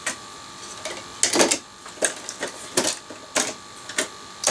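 Irregular clicks and knocks of plastic-bodied 00 gauge model locomotives being handled and shuffled about in a storage box, about two a second, the loudest a little over a second in. A faint steady high tone runs underneath.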